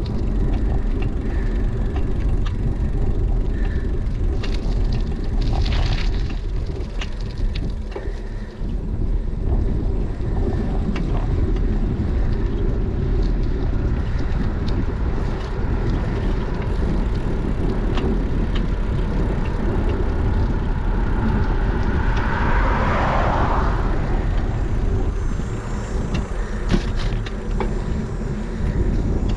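Wind buffeting an action camera's microphone on a moving bicycle, a steady low rumble with tyre and road noise and scattered small clicks and rattles. A brief louder rush of noise comes about three quarters of the way through.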